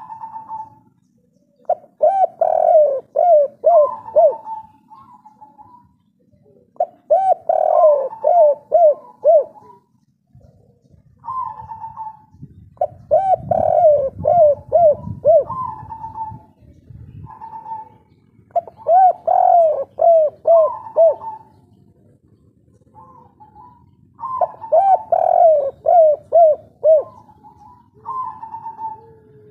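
Spotted dove of the local 'kuk 3' call type, cooing in repeated phrases a few seconds apart. Each phrase is a run of quick falling coo notes with higher single coos between them.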